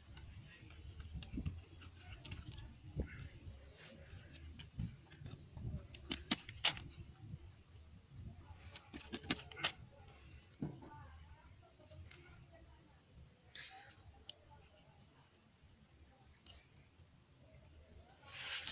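Crickets chirring in a steady high trill that breaks off briefly a few times, over the rustle and crinkle of a plastic bag being handled, with a few sharp clicks.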